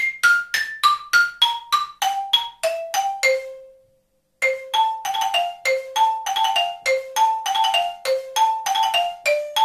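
Xylophone played with hard mallets in an étude: a quick even line of single struck notes, about three a second, climbing and falling. About three and a half seconds in the phrase ends on a note that rings away, and after a short silence a new phrase begins.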